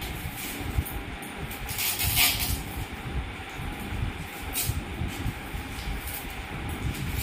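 Handling noise: a low, irregular rumble with short bursts of rustling about two seconds in and again near five seconds.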